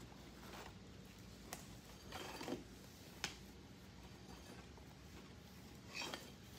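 Faint handling sounds of an aluminium dry sump oil tank being wiped down with a rag: soft rubbing with a few light clicks and knocks, over a low steady hum.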